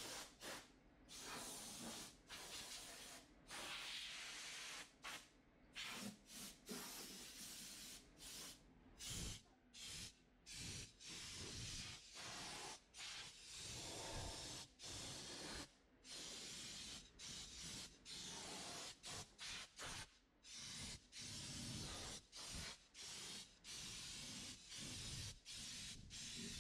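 Compressed-air blow gun hissing in many short on-and-off blasts, blowing loose grit and debris out of a car's engine bay.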